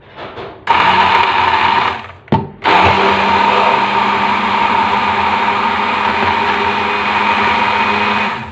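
Electric stick blender running in a tall plastic beaker, blending milk with banana pieces, dates and almonds into a shake. It gives a short burst, runs for about a second, stops briefly with a click, then runs steadily for about five and a half seconds and cuts off near the end.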